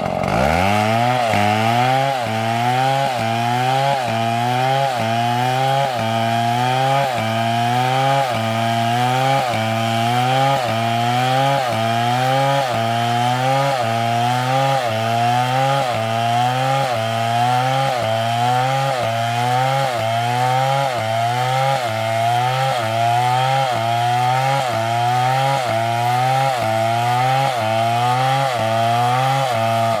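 STIHL chainsaw at full throttle ripping lengthwise through a palm log. The engine's pitch climbs and sags about once a second as the chain bites into the wood.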